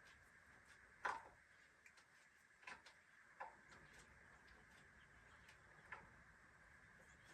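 Near silence broken by a few sharp, irregular clicks and knocks, the loudest about a second in, from handling hard-plastic rocking-chair parts and the screw-driving tool. A faint steady high hum runs behind.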